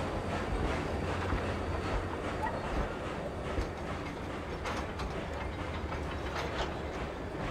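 Passenger coaches of a train rolling past, the wheels rumbling steadily on the rails with scattered clicks over the rail joints.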